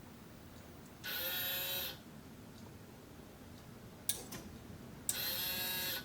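A small motor in a home-built automatic light-switch mechanism whirs twice, about a second each time, with a couple of sharp clicks between the two runs, as the mechanism works to flip the switch off.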